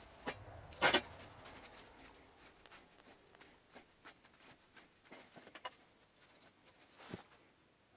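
Hands working parts on a scooter frame: faint scattered clicks, taps and rubbing, with one sharper knock about a second in.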